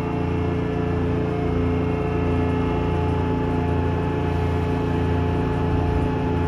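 Seoul Subway Line 3 train running at a steady speed, heard from inside the car: a continuous rumble of wheels on track with a steady hum over it.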